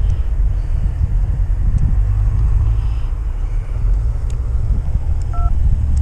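Loud low rumble of wind buffeting the microphone, with a short two-tone electronic beep about five seconds in.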